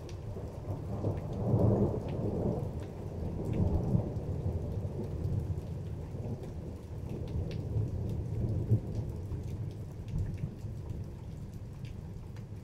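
Rolling thunder rumbling over steady rain, with scattered raindrop ticks. The rumble swells about two seconds in and again near four seconds, then eases off toward the end.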